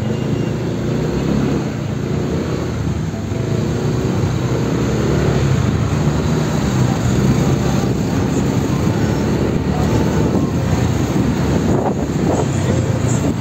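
Diesel engine of a Volvo city bus running close by as the bus drives in traffic, a steady low drone that grows a little louder about four seconds in.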